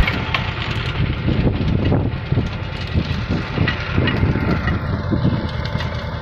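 Swaraj 724 FE 4WD mini tractor's diesel engine running steadily as it pulls a rotavator tilling the soil.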